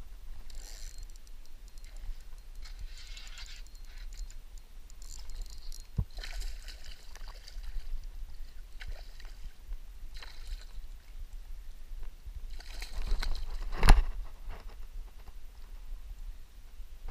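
A hooked smallmouth bass splashing at the water's surface beside a kayak in short, scattered bursts, with the loudest splash about fourteen seconds in as the fish jumps. A sharp knock about six seconds in.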